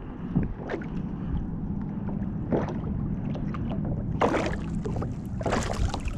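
Sea water lapping against a plastic kayak hull with wind on the microphone. Two louder splashy bursts come about four and five and a half seconds in.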